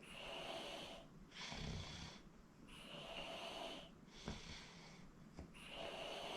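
A sleeping person snoring: slow, hissing breaths about a second long, one of them about a second and a half in with a low rattling snore.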